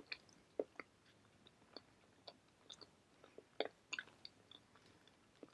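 Faint chewing of a bagel: soft, irregular mouth clicks and smacks.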